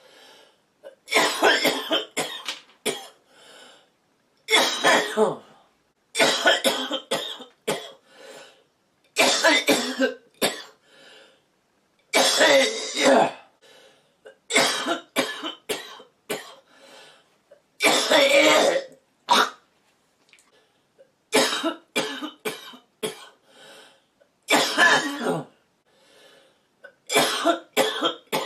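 A woman who is smoking coughs in repeated fits, about ten bouts of several coughs each, with fainter breaths drawn in between.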